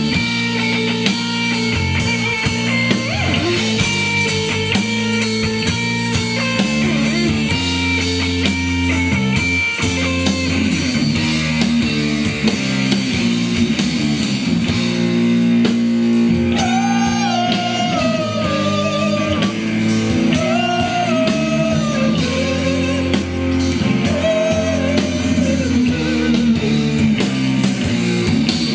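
A rock band playing live on electric bass, drums and guitar, loud and steady. About halfway through, a wavering lead melody comes in over the band.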